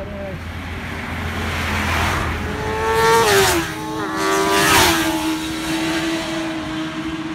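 Two superbikes passing close at speed, about a second and a half apart, each engine note dropping in pitch as it goes by.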